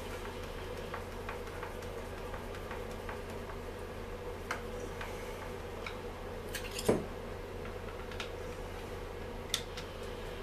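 Scattered small clicks and taps of a screwdriver and hand tools working on a Stihl MS 250 chainsaw and being handled on a cluttered metal-strewn workbench, the loudest a short cluster about seven seconds in. A steady low hum runs underneath.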